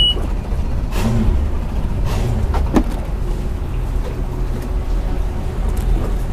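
Twin Mercury 300 hp outboard engines idling, a steady low rumble.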